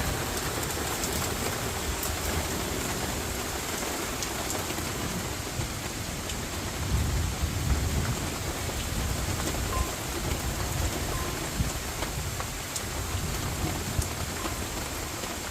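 Heavy rain mixed with hail pelting down steadily, with a few sharp hits standing out. A low rumble swells about seven seconds in.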